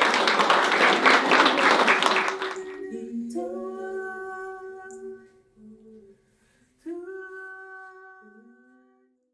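Applause for the first couple of seconds, dying away. Then a short closing piece of music: long held notes, several sounding together, in two phrases with a brief gap between them, fading out near the end.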